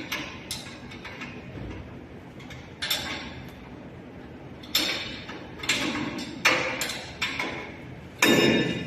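Irregular knocks, clunks and short scrapes of hard parts being handled and fitted back in place, about seven separate hits with the loudest near the end.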